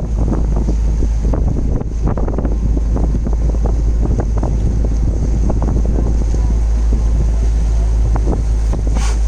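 Strong wind buffeting the microphone aboard a sailboat under way: a steady heavy rumble with irregular crackling gusts, and a brief hiss just before the end.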